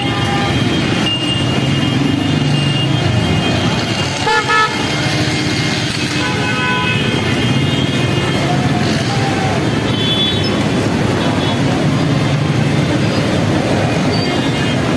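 Jammed street traffic: engines of buses, auto-rickshaws and motorcycles running, with vehicle horns honking again and again, one loud blast about four and a half seconds in, and people's voices around.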